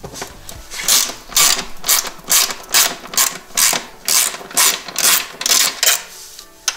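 Hand socket ratchet clicking in short bursts, about two a second, as it is swung back and forth to back out a bolt on a snowmobile's side cover. The clicking starts about a second in and stops just before the end.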